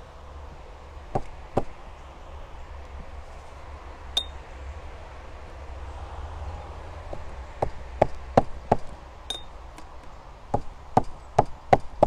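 Sharp taps and knocks of a hard object: two about a second in, then an irregular run of them, a few a second, from the middle on. Two brief high clinks stand out, one early and one just after the middle. A steady low rumble lies under it all.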